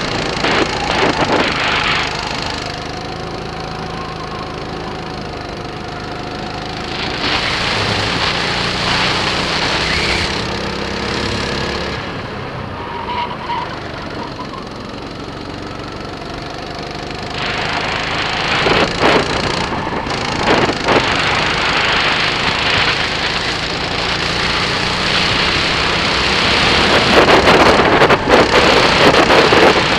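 Birel N35 rental kart's engine running at speed on a track, its pitch and loudness rising and falling as the throttle opens and closes. It swells about seven seconds in, again around eighteen seconds and near the end, with bursts of wind rushing on the microphone.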